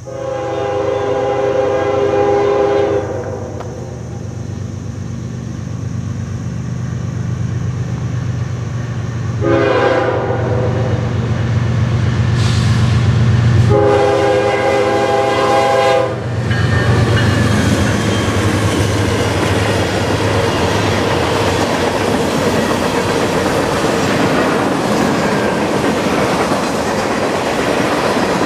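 Nathan K5HL five-chime horn on a GE ES40DC diesel locomotive, sounding a long blast, a short one and another long one for the grade crossing as the engine's rumble builds. The locomotives then pass, and a string of loaded freight cars rolls by with steady wheel clatter on the rails.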